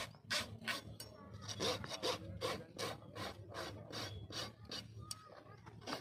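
A steel hoof knife drawn in quick scraping strokes across a farrier's rasp, about three strokes a second, sharpening the blade.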